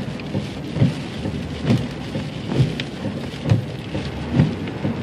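Heavy rain drumming on a car, heard from inside, with a low thump repeating about once a second.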